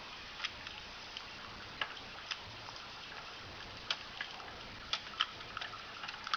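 Scattered light plastic clicks and taps from a 1986 Matchbox Robotech Invid Shock Trooper toy being handled as its arm is posed, over a faint steady hiss.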